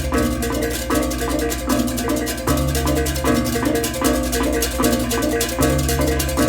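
Balinese baleganjur gamelan playing: a dense, fast stream of interlocking ceng-ceng cymbal clashes over a reyong gong-chime figure, with deep gong and kempur tones swelling under it and changing every second or so.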